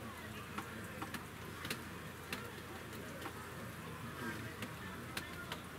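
Steady hiss of rain falling, with irregular sharp ticks of drops striking close to the microphone, about two a second.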